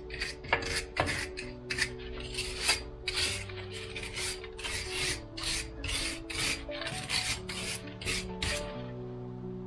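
Rust being scraped off the hub face of a BMW i3's rear wheel hub, in quick rasping strokes about two or three a second that stop shortly before the end. The hub is being cleaned so the new brake disc seats flat.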